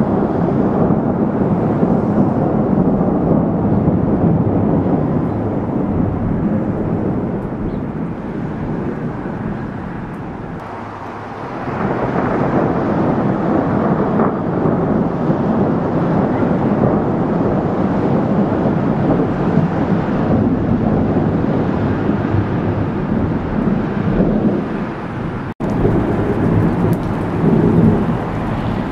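Heavy rain with a continuous deep rumble of thunder, easing for a moment about ten seconds in. Near the end the sound cuts abruptly, then rain continues with more pattering of drops.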